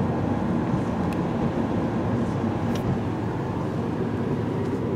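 Steady road and engine noise heard inside the cabin of a moving car.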